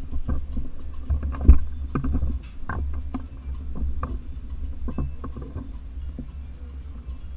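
A toddler's push tricycle rolling across the floor: a steady low rumble with scattered rattles and knocks, picked up through a camera mounted on its handlebar. The loudest knock comes about one and a half seconds in.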